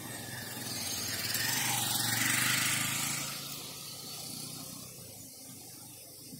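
A vehicle passing by on the street, its noise swelling to a peak about two and a half seconds in and then fading away, over a steady low rumble of traffic.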